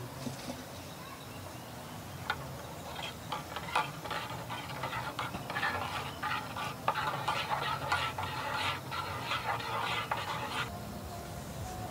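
Metal teaspoon stirring coffee in a stainless steel mug, with rapid clinking and scraping against the mug wall. It starts about two seconds in, grows busier, and stops shortly before the end.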